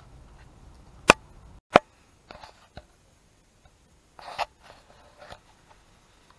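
Workshop handling sounds: two sharp clicks about half a second apart, then scattered light clicks and rustling as brake parts and tools are picked up and set down.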